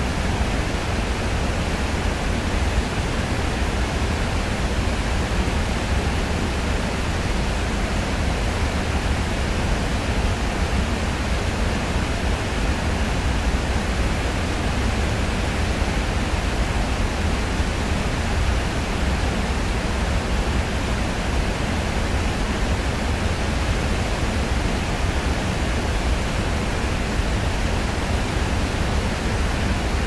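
Waterfall's steady rush of falling water, an even, unbroken noise heaviest in the low end.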